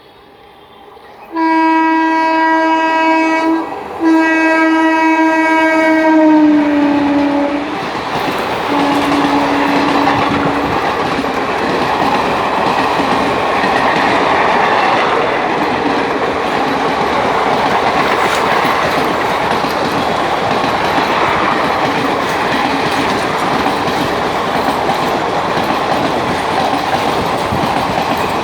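Indian Railways WAP-4 electric locomotive's air horn sounding two long blasts at high speed, the second sliding down in pitch, then a shorter, lower blast. After that the train rushes past with loud, continuous rumble and wheel clatter.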